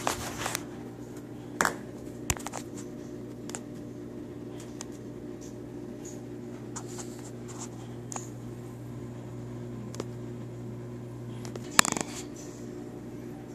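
Scattered handling clicks, scrapes and knocks as the camera and the iPod touch are moved about on a stone counter, over a steady low hum; the loudest knock comes near the end.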